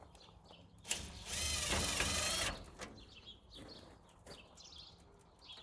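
Cordless drill running in one short burst of a little over a second, about a second in, its motor pitch shifting as it drives a screw for a gutter downpipe fixing.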